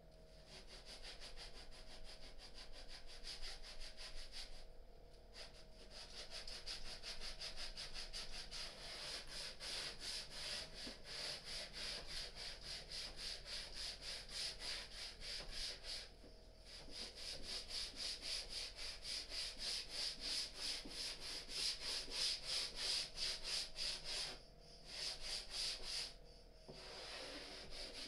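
Hand sanding along the edge of a freshly routed slot in a wooden panel: rapid back-and-forth scratchy strokes, in several runs with short pauses between them.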